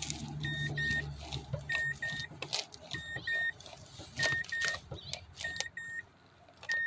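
A car's warning chime double-beeping about once every 1.2 seconds, with a few scattered knocks as the brake pedal is pumped.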